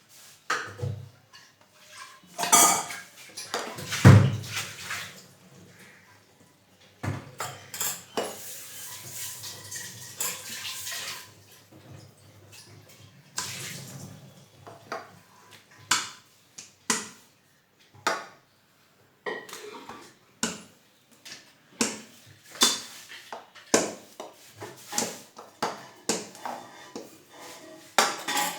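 Kitchen utensils and dishes clinking and knocking during paratha making, in a long run of sharp knocks with louder thumps about two and four seconds in, and a few seconds of rubbing noise about eight seconds in.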